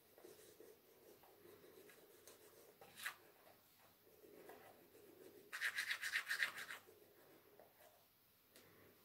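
Manual toothbrush scrubbing teeth: a soft, scratchy back-and-forth brushing, with a louder stretch of quick, rapid strokes for about a second past the middle.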